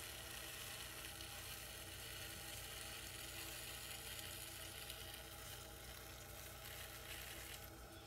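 A hand-held rib scraping along the wet clay wall of a bottle spinning on a potter's wheel, giving a steady soft hiss that fades shortly before the end, over the low hum of the wheel's motor.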